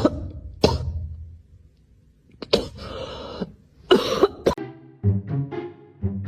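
Several short, sharp, noisy bursts, then music of repeated plucked-sounding notes starting about four and a half seconds in.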